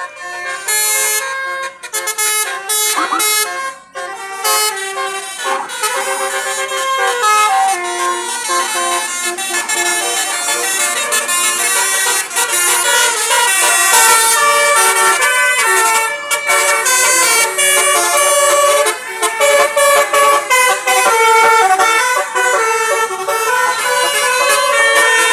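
Indonesian 'telolet' multi-tone bus horn on a Basuri tour bus, playing a long, loud run of quick, changing notes with several tones sounding together, like a tune.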